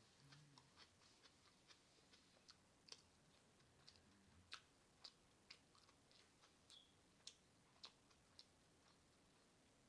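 Faint wet mouth clicks and smacks of someone chewing a mouthful of burger, irregular and about one or two a second.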